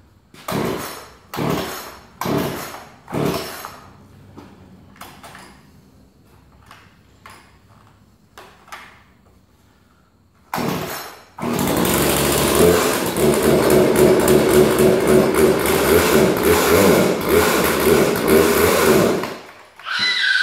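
New Poulan P3314 33cc two-stroke chainsaw being pull-started: four quick rope pulls, a few small clicks, then one more pull and the engine catches about eleven seconds in. It runs with a pulsing buzz for about eight seconds, then cuts out.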